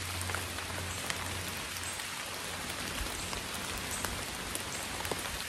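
Steady rain falling through woodland, with scattered individual drops ticking.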